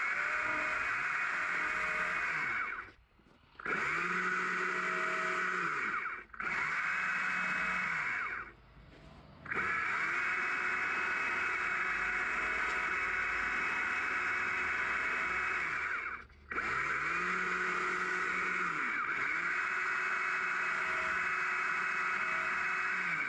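Stihl MSA 200 C battery chainsaw running in long bursts as it cuts shallow swooping grooves into a small green log. Its motor pitch dips and recovers now and then, and it stops briefly several times, longest for about a second around 9 seconds in.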